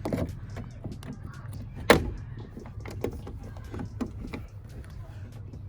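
Small plastic and metal clicks and knocks of a car door lock cylinder being pushed and seated into the exterior door handle, with one sharp, loud click about two seconds in.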